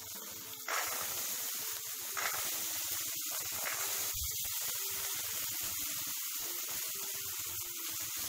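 Green peas tipped into a hot steel kadai of frying onion, chilli and capsicum, the pan sizzling steadily on a high gas flame. The sizzle jumps louder about a second in as the peas go in, with a few light clicks later.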